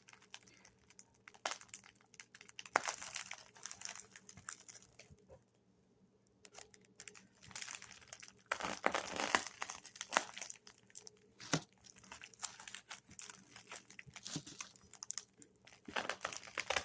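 Packaging being unwrapped by hand: irregular crinkling and rustling with some tearing, a lull a little before the middle, then busier handling.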